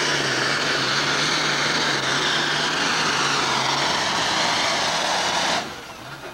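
Pulling tractor's engine running flat out under load, a loud steady noise, which drops off sharply near the end as the throttle is let off.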